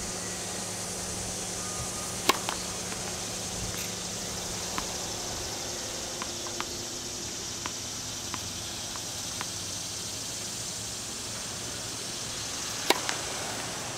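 Tennis serves: a racket strikes the ball with a sharp crack twice, about two seconds in and again near the end, with softer taps of the ball being bounced on the hard court between them, over a steady high hiss.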